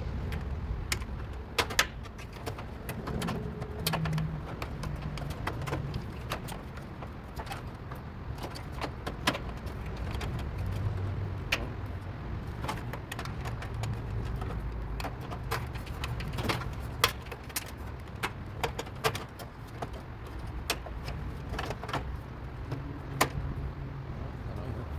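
Scattered small clicks and knocks of plastic and metal parts being handled as wire terminals are fitted to a dryer's replacement door switch and light assembly, over a steady low rumble.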